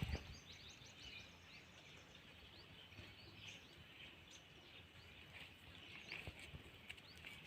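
Faint, scattered birds chirping over a quiet rural background, with a few more calls in the first second.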